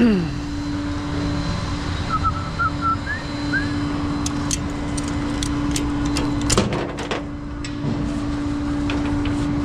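A vehicle engine running with a steady hum, with a few sharp clicks and knocks partway through.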